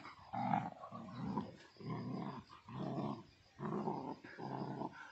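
Dogs play-growling while a beagle puppy and a Labrador wrestle: a run of about six short growls, one after another.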